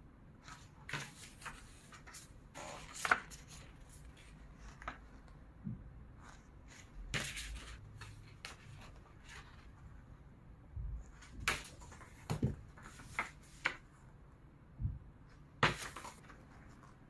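Pages of a paperback manga volume being leafed through, with irregular paper rustles and flicks and the odd soft knock of handling.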